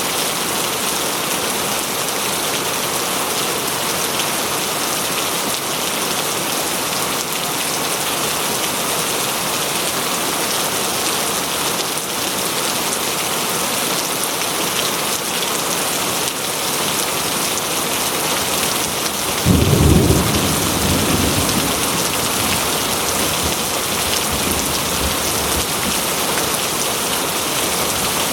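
Steady rain falling in a forest, an even hiss throughout. About two-thirds of the way through, a sudden low rumble of thunder breaks in and fades over a few seconds.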